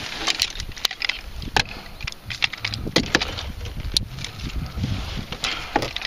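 Irregular clicks and knocks of fishing gear being handled in a small boat, over a low rumble.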